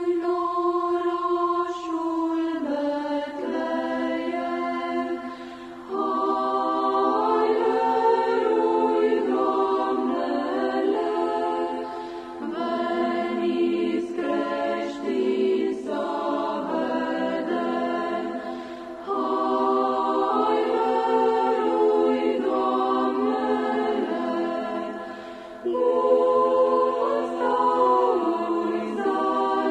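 Choir singing a Romanian Christmas carol (colindă) in slow, held phrases, a new phrase beginning every six seconds or so.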